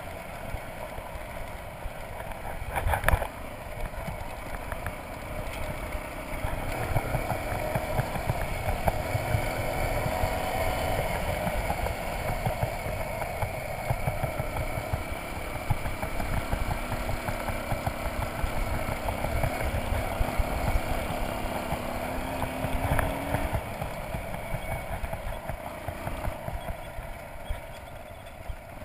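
Motorcycle engine running under way on a gravel road, mixed with wind rumble on the on-board camera microphone. A sharp knock about three seconds in, and the engine pitch rises briefly later on.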